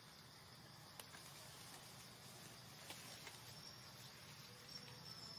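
Near silence: a faint, steady, high-pitched insect drone of the forest, with a couple of faint ticks.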